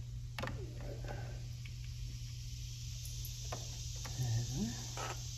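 A handful of light, sharp clicks and taps from hands working the grille mesh and its fittings behind the bumper opening, over a steady low hum and a faint high hiss.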